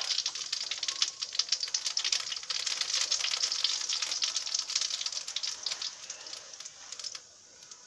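Cumin seeds spluttering in hot mustard oil in a steel wok: rapid crackling pops over a sizzle, thinning out and dying away about seven seconds in.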